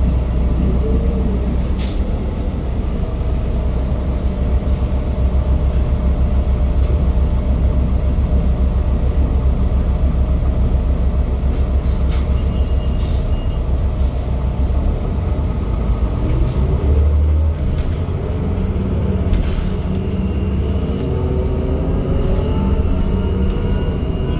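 Cabin noise inside a 2012 New Flyer D40LFR city bus on the move: the Cummins ISL9 diesel engine and Allison transmission running with a steady low rumble and road noise, and a few sharp rattles. In the second half the engine's pitch rises as the bus picks up speed.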